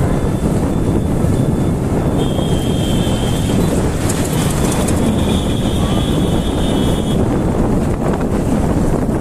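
Wind rushing over the microphone together with engine and road rumble from a motorcycle riding at highway speed through traffic. A thin, high steady tone sounds briefly about two seconds in and again from about four to seven seconds in.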